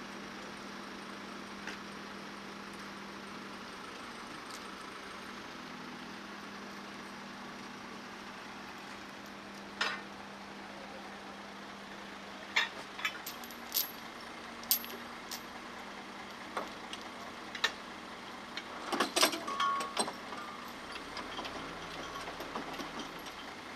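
Steel lifting chain and hooks clinking and rattling as they are handled and fastened, a scattered run of sharp metal clinks from about ten seconds in, busiest near the end, over the steady hum of an idling truck engine.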